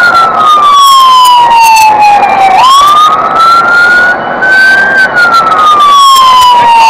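A fire engine's siren sounds loudly in a slow wail. The pitch slides down over about two and a half seconds, snaps back up quickly, climbs, and slides down again near the end.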